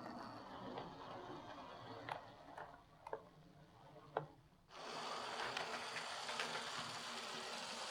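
An OO gauge Lima Class 37 model diesel locomotive fitted with a CD motor, running on track: a faint motor whirr and wheel rumble with a few sharp clicks, becoming suddenly louder and hissier about two-thirds of the way in.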